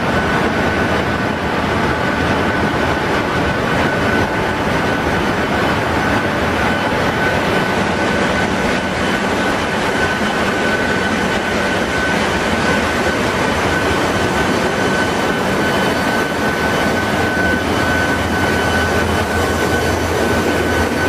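Machinery running steadily in a ship's engine room: a loud, even, unbroken mechanical noise with a steady high whine over it.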